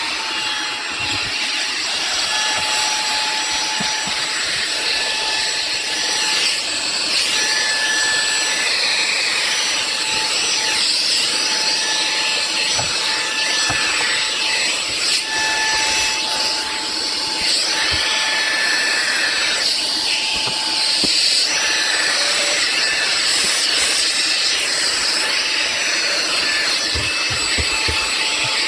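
Xiaomi Mijia portable vacuum cleaner's brushless motor running steadily: a loud rush of air with a thin high whine on top.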